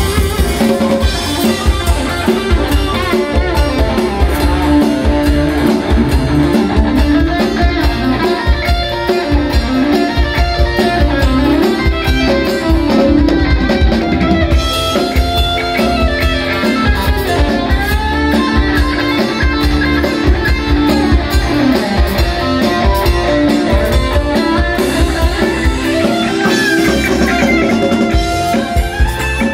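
Instrumental Khmer rock tune played live by a band: electric guitar carrying the melody over a steady drum kit beat.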